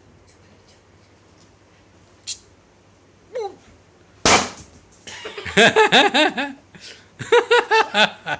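A balloon pops with one loud sharp bang about four seconds in, as a young German shepherd bites it. Right after, a person laughs in quick repeated high peals until the end.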